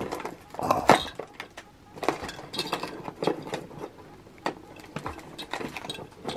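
Hands pushing open a cardboard advent-calendar door and pulling out a small cardboard box, with irregular taps, clicks and rustling of card.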